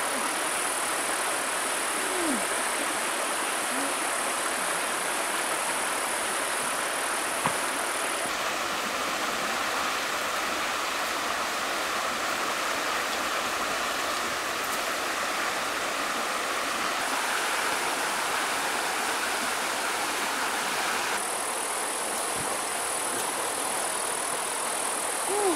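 Steady rush of a shallow mountain stream flowing over rocks. A high, even hiss sits over it in some stretches and drops out and returns, with a single faint click about seven seconds in.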